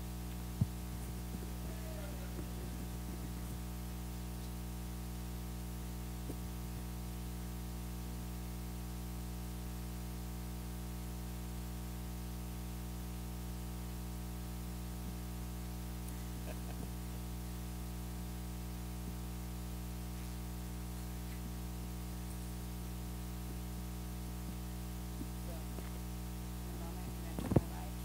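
Steady electrical mains hum and buzz in the audio feed, a low drone with a stack of fixed tones. A sharp click comes about half a second in, and a short loud blip comes near the end.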